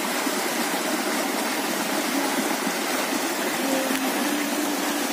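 Small waterfall in a rocky stream, water rushing steadily over the stones.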